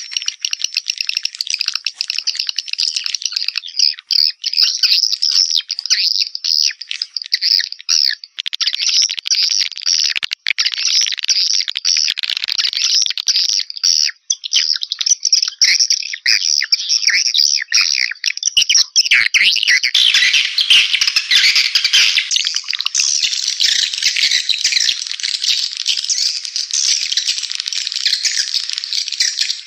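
Swiftlet call recording used as a lure sound for swiftlet houses: a loud, unbroken stream of rapid, high-pitched chirps and twitters. From about 20 seconds in, the calls become denser and fuller.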